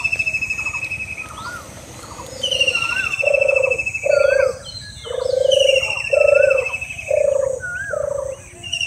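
Repeated animal calls. A long high trill returns about every three seconds, with short rising-and-falling chirps between. From about three seconds in, lower calls come about once a second.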